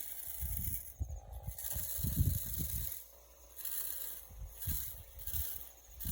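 Wind buffeting the microphone in uneven low gusts, strongest about two seconds in, over a steady high hiss.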